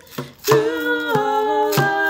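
Layered female voices singing a hymn in close harmony, with frame drum strokes and a hand shaker keeping the beat. After a short break between phrases, the voices come back in about half a second in.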